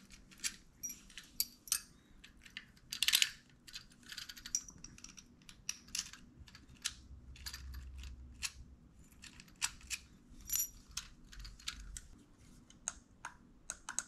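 Irregular light metallic clicks and scrapes of a key and a small screwdriver worked against the metal parts of a smart door lock.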